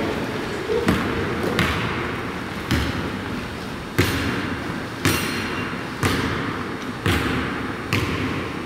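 Basketball dribbled on a hardwood gym floor: sharp bounces about once a second, each echoing through the hall.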